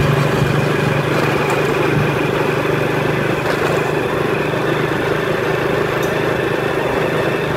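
Motorbike engine running steadily at cruising speed, with a constant low hum under wind and road noise.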